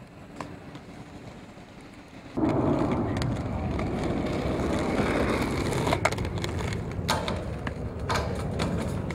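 Inline skate wheels rolling on pavement, starting suddenly about two seconds in, with a few sharp knocks of the skates hitting the metal barrier rail near the end.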